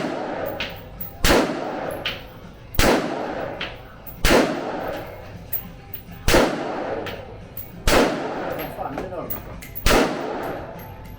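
Gunshots at a shooting range: about seven single shots, one every one and a half to two seconds, each followed by a short echo.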